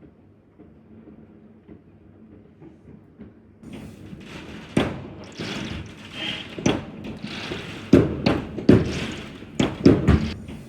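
Faint muffled sound, then a sudden rushing noise about three and a half seconds in, with a rapid, irregular series of thumps and bangs, loudest near the end.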